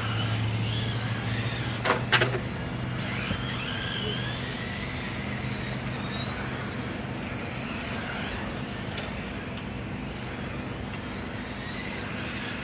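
Brushed-motor electric RC touring cars whining up and down in pitch as they speed up and slow down around the track. Under them runs a low steady hum that fades past the middle, and two sharp knocks come about two seconds in.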